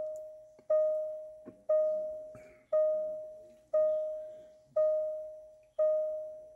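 Jaguar XJL warning chime sounding about once a second with the ignition on: a single clear tone that strikes and fades away each time.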